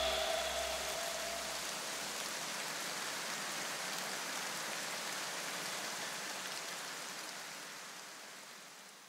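Steady hiss-like noise wash on the soundtrack, like rain, left after the electronic music cuts off. Low bass notes die away in the first two seconds, and the noise fades out to silence near the end.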